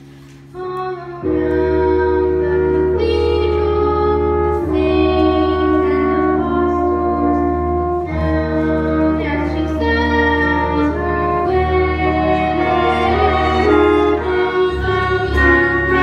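Slow instrumental music starts about a second in and plays loudly, with long held chords over a steady low note.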